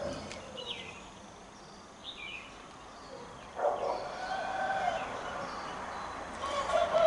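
A few short bird chirps, then from about three and a half seconds in, the steady noise of road traffic swells up and holds.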